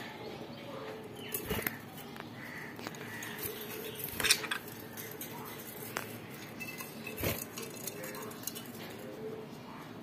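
Budgerigars chattering and twittering with many short chirps, with a few sharp clinks from the cage, the loudest about four seconds in.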